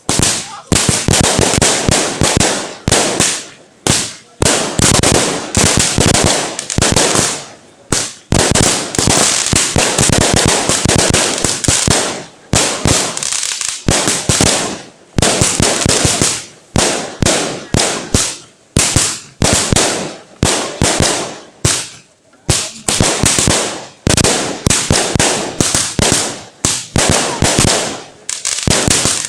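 Fireworks going off: long volleys of rapid, sharp bangs and crackles, each breaking off briefly every few seconds before the next starts.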